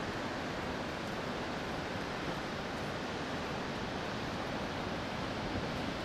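Steady, even rushing of the Vøringfossen waterfall's falling water.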